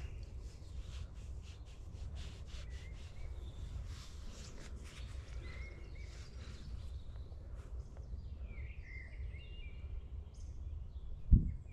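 Low wind rumble on the microphone, with footsteps crunching through dry grass over the first half. Bird chirps come in around eight to ten seconds in, and a single heavy low thump lands near the end.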